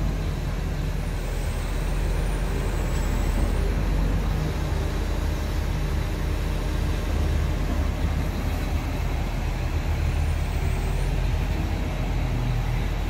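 Hyundai R320LC-9 excavator's Cummins QSC diesel engine idling with a low, even hum.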